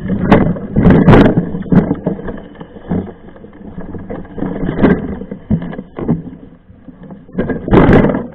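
Mountain bike riding over rough trail: uneven gusts of wind on the microphone mixed with knocks and rattles from the bike, loudest about a second in and again near the end.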